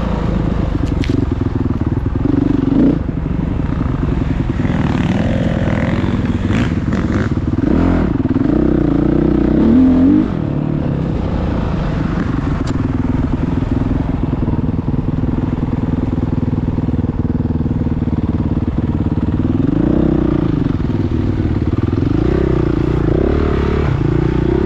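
Motocross bike engine running, its revs rising and falling several times, highest about ten seconds in.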